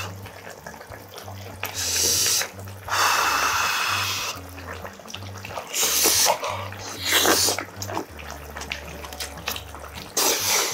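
Close-miked eating sounds: loud slurps and sucking of braised kimchi and pork with rice, in several hissy bursts of about half a second to a second, with quieter chewing between.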